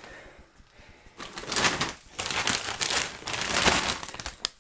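Plastic packaging of frozen chicken fillets crinkling and rustling as the bag is picked up and handled, in uneven surges starting about a second in.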